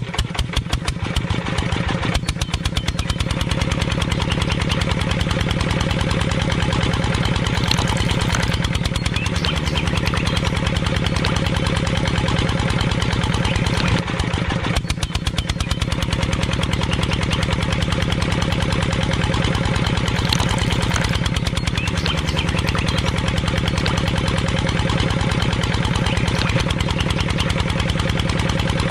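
Engine of a miniature model tractor, built like a single-cylinder diesel with a flywheel, starting up and settling within a couple of seconds into a steady, rapid chugging run.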